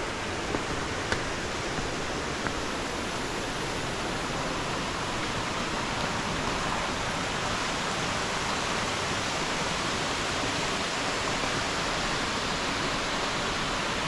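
Steady rush of water from a small waterfall and its rocky stream, an even hiss with a few faint ticks in the first couple of seconds.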